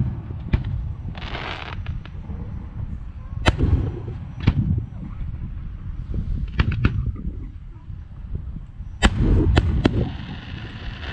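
Aerial firework shells bursting with a string of sharp, spaced bangs over a continuous low rumble, with a short hiss about a second in. Three of the loudest bangs come close together near the end.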